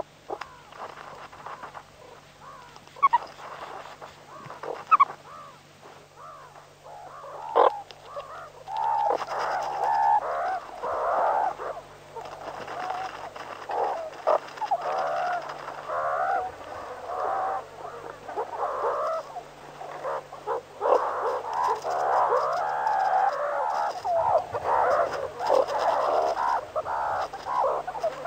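Meerkats calling: a few sharp, separate squeaks at first, then, about a third of the way in, a dense run of overlapping chirps and chatter with wavering pitch that goes on to the end.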